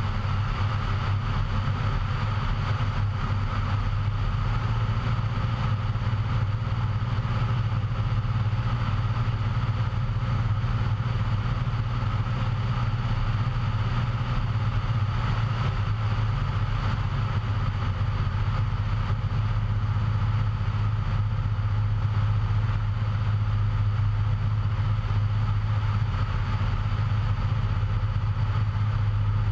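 Cessna 172's engine and propeller in flight, a steady drone that holds one pitch throughout, with a hiss of airflow over it.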